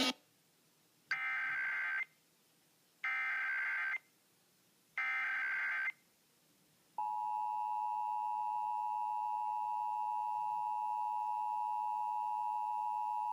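Emergency Alert System tones: three one-second bursts of SAME header data tones, a second apart, then the steady two-tone attention signal (853 and 960 Hz) starting about seven seconds in. The sequence announces an emergency alert, here a national test.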